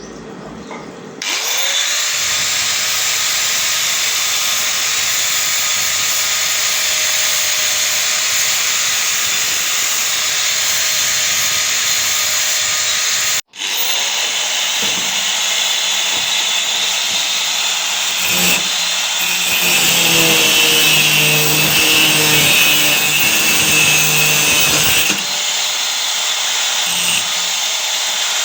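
Electric angle grinder spinning up to speed and running steadily on scrap metal. It cuts out briefly about halfway and spins up again, and its pitch wavers as it works under load in the second half.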